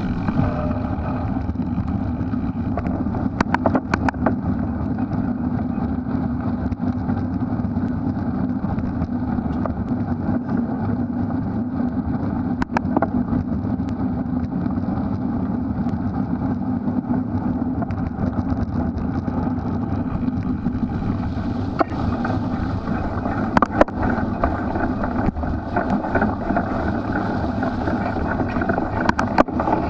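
Wind rushing over the camera mic and the steady rolling and drivetrain noise of a Specialized Crux Elite X1 cyclocross bike ridden hard through mud, broken by a few sharp knocks as the bike jolts.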